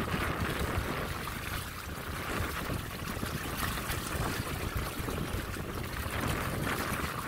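Water rushing and splashing past the stern of a MacGregor 26X sailboat under sail in a strong breeze, a steady swash of wake with a low wind rumble on the microphone.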